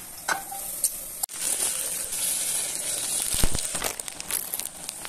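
Ground beef and potatoes sizzling in a pot as a wooden spatula stirs them, scraping and knocking against the pot, with a cluster of louder knocks about three and a half seconds in.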